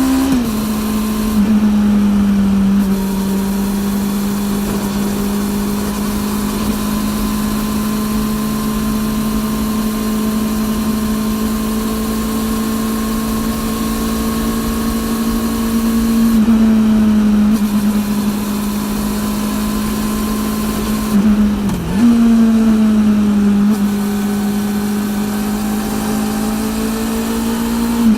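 Honda CB400 NC42's inline-four engine through a TSR E02 slip-on exhaust, heard while riding at a steady, fairly constant pitch. The pitch dips briefly and changes about a second in, around the middle, and again about three quarters of the way through, as the throttle or gear changes.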